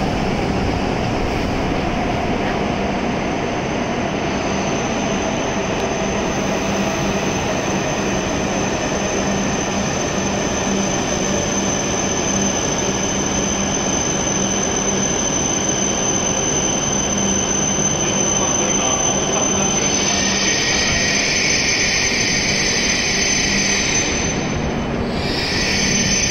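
E7 series Shinkansen train running slowly along the platform as it pulls in to a stop: a steady rolling rumble with a high whine, and a brighter hiss joining about twenty seconds in.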